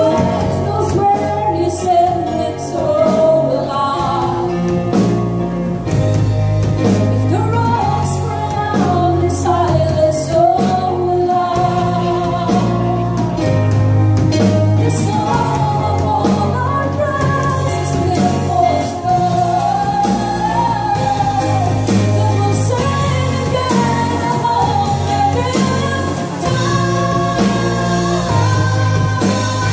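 Live worship band playing: women singing the melody over keyboard, guitar and drum kit with cymbals.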